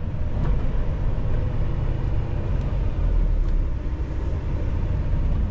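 Semi-truck's diesel engine running at low speed, a steady low rumble heard from inside the cab.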